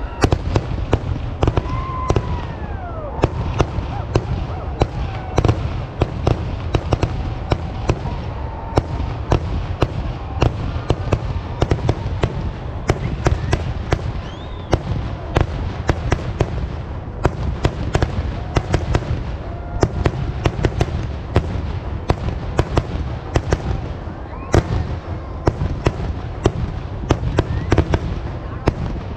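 Kerala vedikkettu fireworks display: a dense, unbroken barrage of cracker bangs, many a second, over a steady low rumble.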